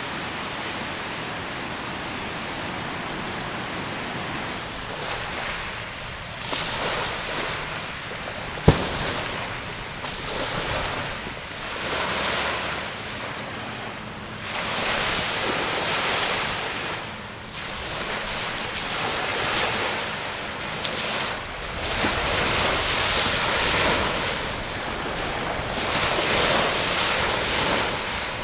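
Bay water washing and wind buffeting the microphone, swelling and easing every second or two, with one sharp click about nine seconds in.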